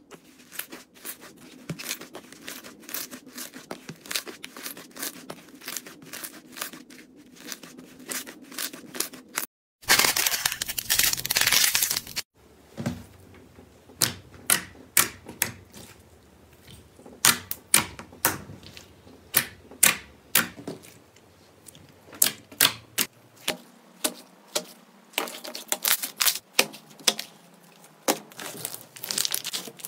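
Slime being squished and stretched, making a run of crackling clicks and small pops. About ten seconds in there is a loud, dense rush of crackling for about two seconds, followed by sharper, separate pops.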